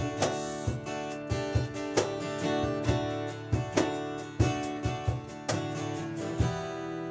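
Guitar strummed in a steady rhythm, an instrumental passage of a song between sung lines. The last chord, about six and a half seconds in, is left ringing.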